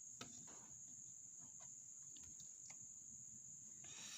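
Near silence with a steady faint high-pitched tone, and a few faint light clicks.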